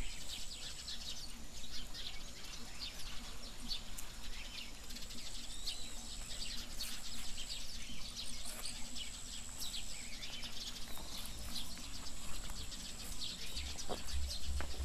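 Small birds chirping: many quick, high chirps, with a thin, steady high-pitched tone that comes and goes.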